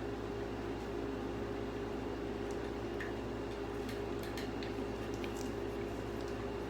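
Steady low electrical hum, as of a fan or appliance running, with a few faint short clicks.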